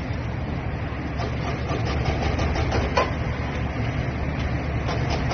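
Excavator's diesel engine running steadily, a low rumble, with one sharp knock about three seconds in.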